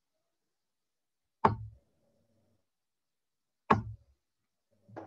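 Two darts thudding into a Winmau Blade 6 bristle dartboard, about two seconds apart.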